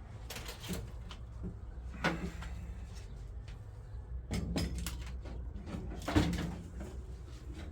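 A few scattered sharp knocks and clatters, about five in all, the loudest about six seconds in, over a steady low hum.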